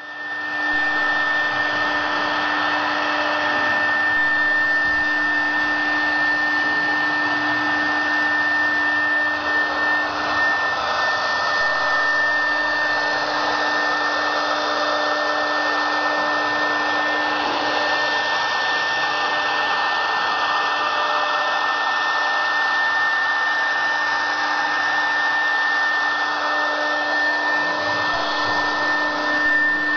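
OMNI 4-axis CNC router spindle running and cutting a moulding profile: a steady high whine over a continuous hiss, with no change in pace.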